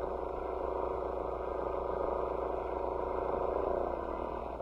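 Electric stand mixer running at medium speed, beating cake batter, then switched off near the end, which ends the first two-minute mixing period.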